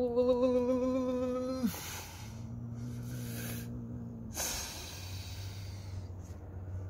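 A cornered tortoiseshell cat in a wire trap making defensive threat sounds: a long, low, steady yowl that drops off sharply just under two seconds in, then two sharp hisses, with a low growl in between and after. These are the sounds of a frightened, aggressive cat.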